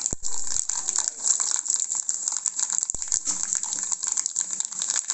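Coconut oil sizzling and crackling in a pan as a tempering of mustard seeds and dried red chillies fries, with a few low knocks near the start and about three seconds in.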